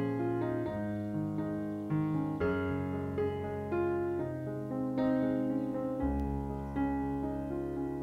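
Calm piano music, notes struck about once a second and left to ring, with a deep bass note coming in about six seconds in.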